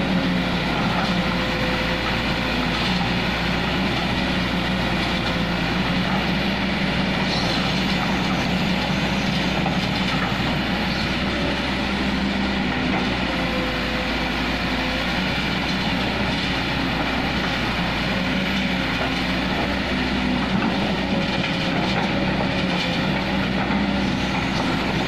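Kobelco SK200 crawler excavator's diesel engine running steadily at working speed, with the rattle of the machine working and moving on its tracks.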